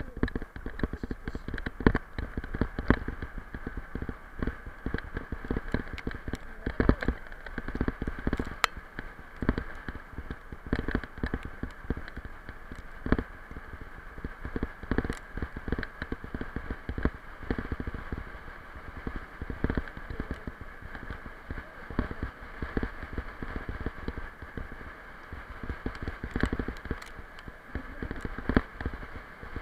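Bicycle towed by a dog, rolling fast over a bumpy forest dirt trail: continuous tyre noise with frequent irregular rattles and knocks from the bike and its handlebar-mounted camera.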